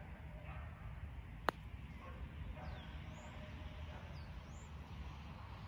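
A golf club strikes the ball once in a short stroke from just off the green: a single sharp click about one and a half seconds in. A few brief, falling bird chirps follow over a faint outdoor background.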